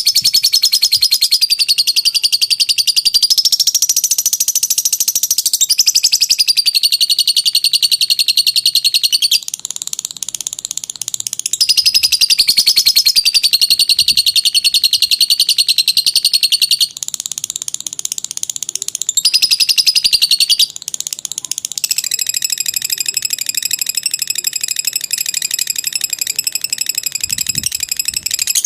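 Lovebird in a long, unbroken 'ngekek' chatter: a rapid, high-pitched trill that runs on without pause, changing pitch and pattern every few seconds.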